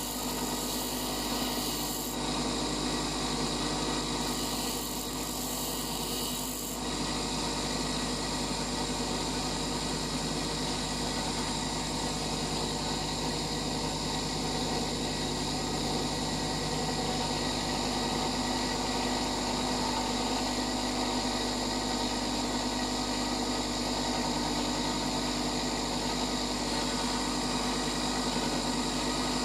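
Bench grinder running, with a steel twist drill bit held against its white grinding wheel. A steady motor hum sits under a continuous rasping grind of the bit's tip being sharpened.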